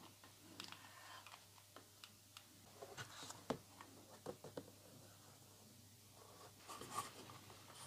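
Near silence with a few faint, scattered taps and clicks of hands handling a picture frame and paper background as it is glued in.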